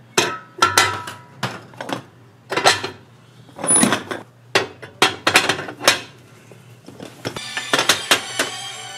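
Metal kitchenware clanking and clinking on a fish-shaped bread (bungeoppang) grill: irregular sharp knocks, some ringing briefly, the heaviest about four seconds in, then a quicker run of clinks near the end.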